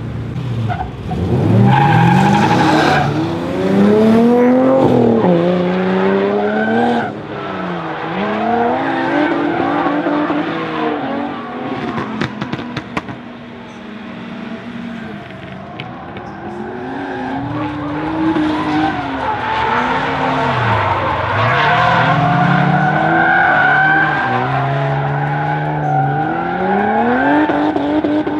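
Drift car engine revving up and falling back again and again, with tyres squealing as the car slides through the course.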